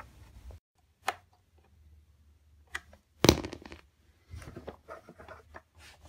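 Scattered plastic clicks and knocks as the bottom cover of a Bissell PowerForce bagless vacuum is handled and fitted back over the roller, with one sharp knock about three seconds in and a run of lighter clicks near the end.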